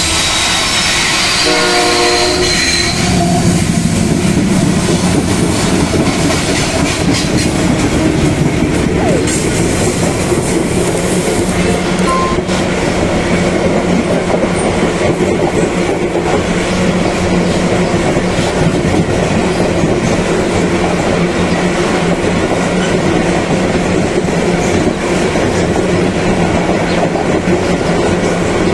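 Diesel-hauled MRS freight train passing: a steady chord of several tones sounds for the first three seconds as the last locomotive goes by. Then a long string of loaded freight wagons rolls past with a steady heavy rumble and the clickety-clack of wheels over the rail joints.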